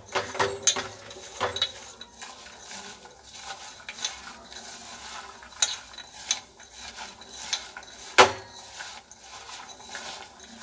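Soaked raw peanuts being mixed with spice powder by hand in a steel pot: irregular clicking and rattling of the peanuts and fingers against the metal, with one louder knock about eight seconds in.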